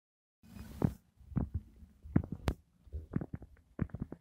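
Fish smacking at the pond's surface: irregular wet pops and smacks, a few a second, some much louder than others, over a low hum.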